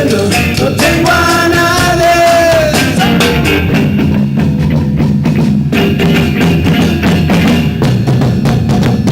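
Live rock band playing loudly: a held melodic note over the drums for the first few seconds, then the drum kit, with kick and snare, carries on with the bass toward the end of the song.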